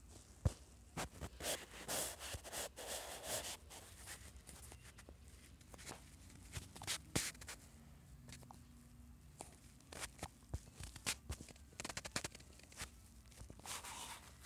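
Faint handling noise from fingers tapping on a phone's touchscreen: scattered light taps and clicks, with stretches of scratchy rustling about a second in and again near the end.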